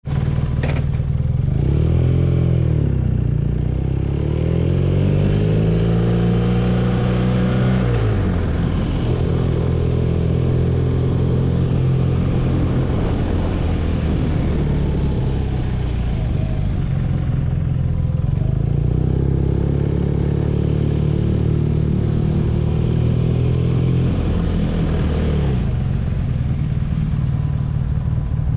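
BMW R nineT's air/oil-cooled boxer twin under way. Its pitch rises as the bike accelerates, drops sharply about eight seconds in, holds steady, then rises again and drops back near the end.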